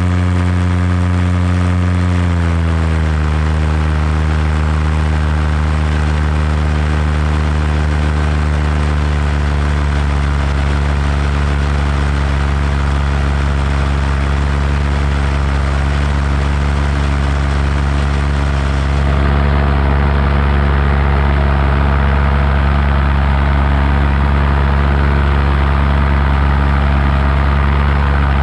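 Paramotor engine and propeller running steadily in flight. About two seconds in, the engine note drops as the throttle is eased back, and it then holds a steady pitch, growing slightly louder about two-thirds of the way through.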